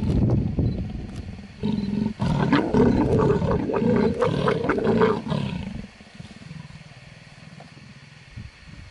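Mating leopards growling loudly in two long bouts, the second breaking off about five and a half seconds in.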